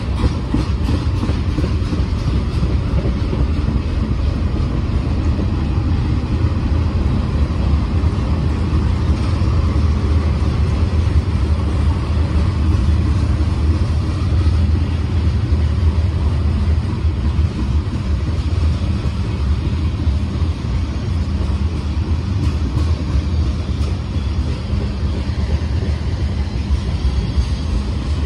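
A freight train's cars rolling past, a steady low rumble of steel wheels on the rails as tank cars, covered hoppers and autoracks go by.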